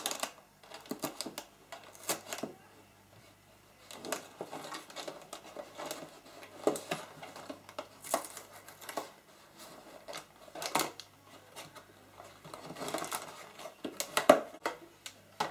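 A small cardboard box being handled and opened by hand: irregular scrapes, taps and rustles of card against card and against a wooden desk, with short pauses between.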